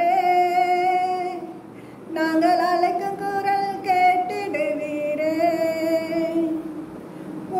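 A woman singing a Tamil devotional song to Saint Anthony, holding long notes, with a short break for breath about two seconds in.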